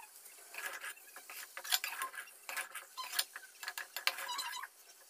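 Spatula scraping and clinking against a wok as a thick mango pickle is stirred, in short, irregular strokes.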